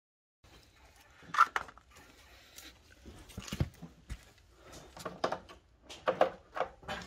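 Hand tools and metal parts being handled under a car: irregular clinks and knocks, a few of them ringing briefly, starting after a moment of dead silence.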